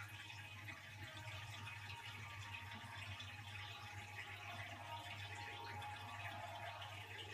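Faint, steady din of a large arena crowd played through a television speaker and heard across a room, over a low steady hum.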